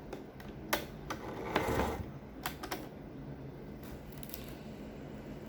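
Irregular light clicks and taps from hands working at a sewing machine and fabric while setting up to stitch, with no steady machine run.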